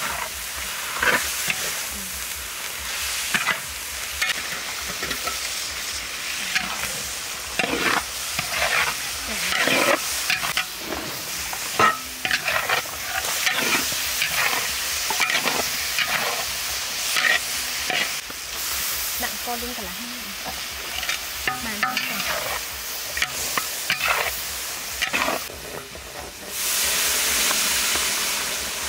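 A metal spatula scrapes and stirs vegetables in a large sizzling wok, with many short scrapes against the pan. Near the end, water poured into the hot wok sets off a loud, steady hiss.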